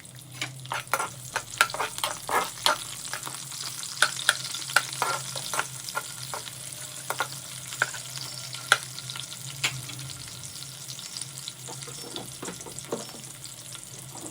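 Chopped onions sizzling in hot oil in a kadai, stirred with a spoon that scrapes and clicks against the pan. The stirring strokes come thick and fast for the first ten seconds or so, then thin out.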